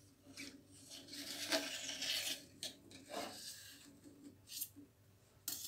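Knife blade scraping and rubbing along the inside edge of a glass baking dish, loosening a set flan from its sides: a run of uneven scraping strokes over the first three seconds or so, then a couple of shorter scrapes near the end.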